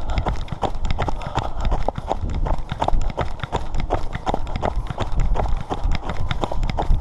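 Quick, regular footsteps in snow as a person hurries across a snow-covered frozen lake.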